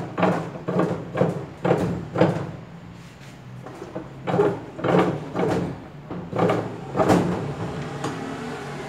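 A long T-handle socket wrench turning a nut at the bottom of a top-loading washing machine's drum, anticlockwise to loosen it. It knocks and scrapes against the metal drum in repeated strokes about two a second, with a pause around three seconds in.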